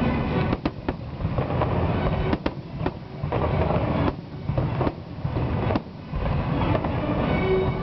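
Fireworks display: aerial shells bursting with several sharp bangs at uneven intervals over a continuous low rumble of explosions and echo.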